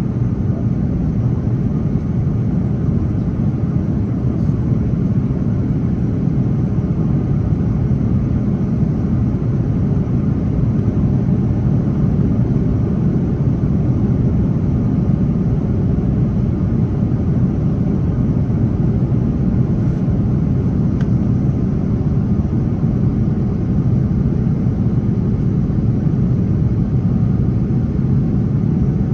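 Steady low rumble of an Airbus A330-900neo cabin, from its Rolls-Royce Trent 7000 engines and the airflow, heard from a seat inside the cabin while the plane climbs out after takeoff.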